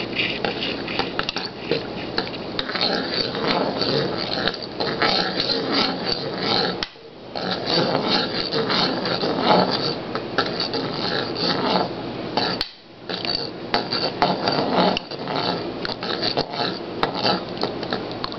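A spoon stirring liquid in a saucepan, clinking and scraping against the pan's sides and bottom without let-up, pausing briefly twice.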